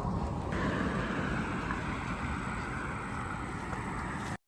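Steady outdoor noise with wind buffeting the microphone, cutting off suddenly near the end.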